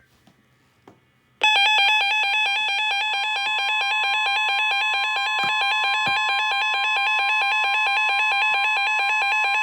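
NOAA Weather Radio warning alarm sounding for a severe thunderstorm warning: a steady tone near 1 kHz with rapid electronic beeping that alternates between two pitches over it. It starts abruptly about a second and a half in, after near silence.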